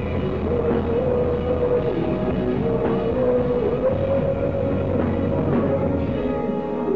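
Live rock band playing loud, with drum kit, electric guitar and bass, and a long held note over the top.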